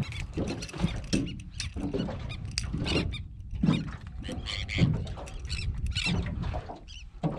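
Irregular patter of taps and slaps as a small speckled trout is handled and flops against the aluminium deck of a jon boat.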